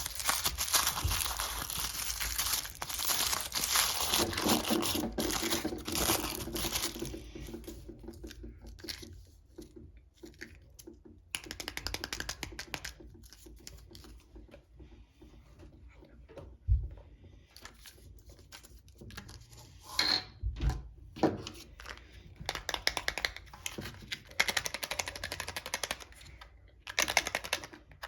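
Plastic wrapping of a Mini Brands surprise ball being torn and crinkled, dense for about the first seven seconds, then thinning to scattered rustles and clicks.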